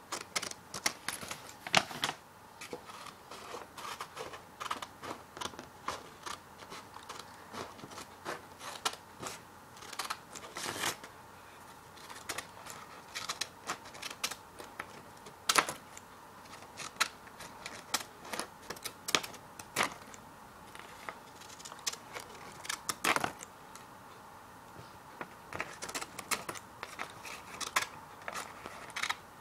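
Scissors cutting paper: a run of irregular, crisp snips and blade clicks, one to three a second, with a few louder cuts now and then.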